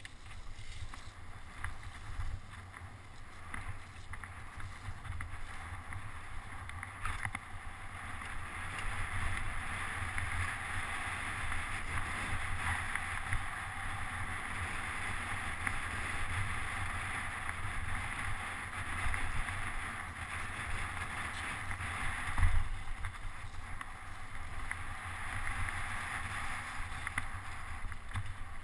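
Mountain bike ridden fast down a dirt forest trail, heard from a camera mounted on the bike: a steady hiss of tyres and rushing air, with a constant low rumble and rattle as the bike jolts over bumps. The hiss grows louder about a quarter of the way in as the speed picks up, and there is one louder knock about three quarters through.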